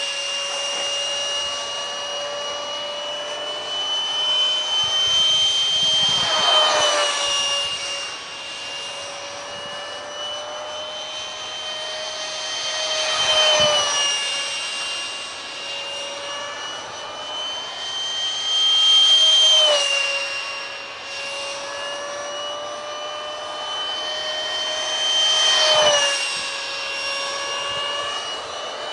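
Detrum 70 mm electric ducted fan on a foam bat-wing RC jet, a steady high whine passing overhead again and again. It gets louder as the jet closes in and drops in pitch as it goes past, about every six to seven seconds.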